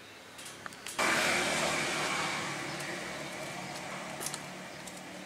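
Passing motor vehicle: a steady rushing noise that comes in suddenly about a second in and slowly fades.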